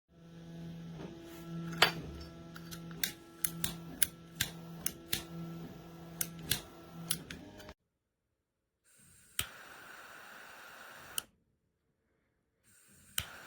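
A run of sharp clicks over a steady low hum. Then, about nine seconds in, a click followed by the steady hiss of a butane torch lighter burning for about two seconds, which ends with another click. The hiss starts again near the end.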